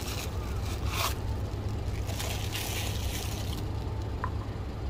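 A few short scraping and rustling sounds of things being handled, over a steady low hum, with a brief thin beep-like tone near the end.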